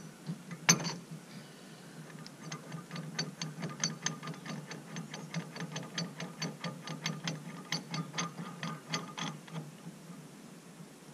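Ratchet wrench clicking in quick, even strokes, about five a second, for several seconds as a nut on the weight distributing hitch head is run down. A single sharp knock comes about a second in.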